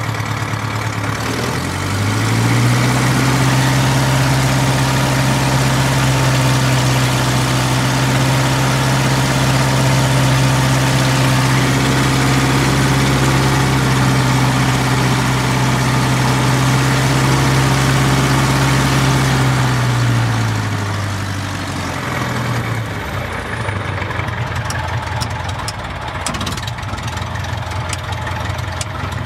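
Single-engine light aircraft's piston engine, propeller turning, run up to a higher, steady speed about a second and a half in and held there, then throttled back to idle about 20 seconds in: a pre-takeoff engine run-up on the ground. A few light clicks come near the end.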